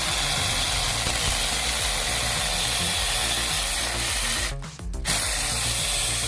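Chainsaw cutting through wood, a steady dense cutting noise that breaks off briefly about four and a half seconds in and then resumes.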